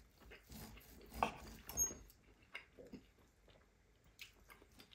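Soft, sparse chewing and wet mouth smacks from someone eating steak, with a couple of louder smacks about a second in and just before two seconds.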